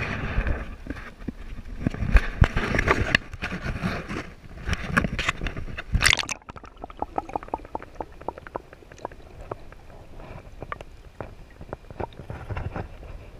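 Water splashing and sloshing right at a camera held at the pond surface while a bass is handled in the water. About six seconds in the camera goes under the water: the sound turns muffled, with many small clicks and knocks.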